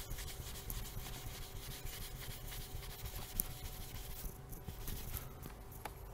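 Faint, irregular rubbing and scratching of a cloth wiping a beam under a car's hood, scrubbing off lacquer overspray.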